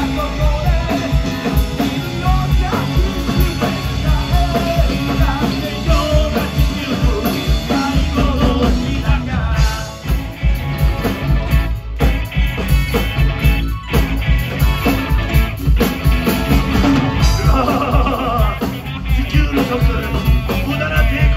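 Live rock band playing on stage: electric guitars, bass and drums with a steady beat, and a singer on a hand-held microphone. The music cuts out for a moment twice near the middle.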